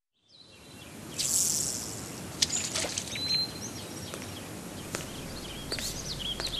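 Outdoor ambience fading in from silence: a steady background noise with birds chirping and a few sharp clicks over it.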